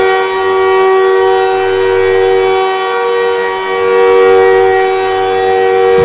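Montreal Canadiens' hockey goal horn blowing one long, loud chord of several steady tones, held without a break.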